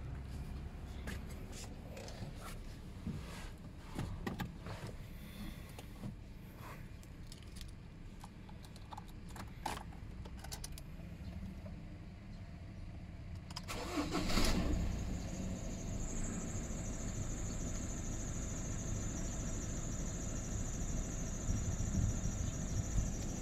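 Ford Ranger T6's 2.2-litre four-cylinder turbodiesel on a cold start. Scattered clicks and knocks come first, then about 14 s in the engine cranks briefly and fires. It settles to a steady idle at about 1000 rpm, and a high thin whine comes in about two seconds after it catches.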